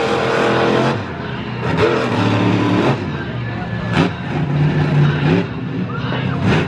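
Monster truck engine revving up and dropping back as the truck drives and turns on the dirt track.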